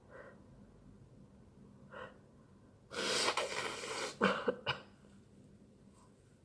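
A sneeze: two faint catching breaths, then a loud, drawn-out sneeze about three seconds in, followed by three quick sharp snorts.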